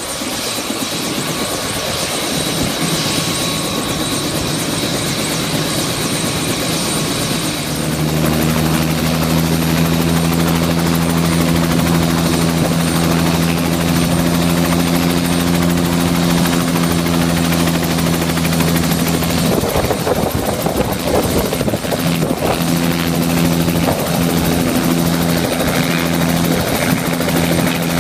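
Bell 206 JetRanger helicopter running on the ground: a high, steady turbine whine at first, then the deep, steady beat of the spinning main rotor comes up loudly about eight seconds in and holds as the helicopter readies to lift off. Around twenty seconds in the steady sound is briefly broken up by buffeting.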